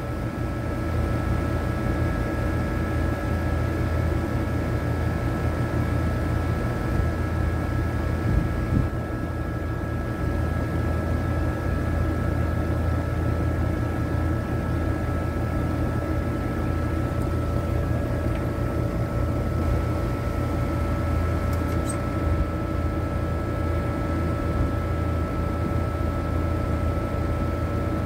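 Outdoor air-conditioning condenser unit with its condenser fan motor running, a steady hum, while the compressor is not running and the system is not cooling.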